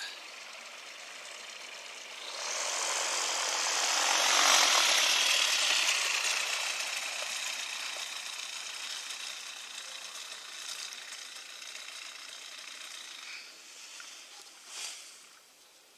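Propeller-driven aircraft's motor buzz. It swells about two seconds in, is loudest a couple of seconds later as it passes close, then fades slowly away. A short whoosh comes near the end.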